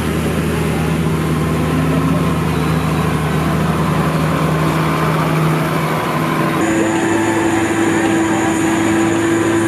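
Diesel tractor engines running steadily at a tractor pull. About two-thirds through, the sound switches abruptly to a red articulated tractor's engine labouring under load as it drags the weight-transfer sled, a steady hum with a higher tone over it.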